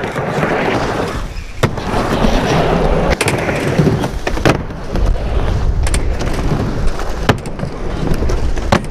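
Skateboards rolling across a skatepark ramp and flat ground, with several sharp clacks of boards popping and landing.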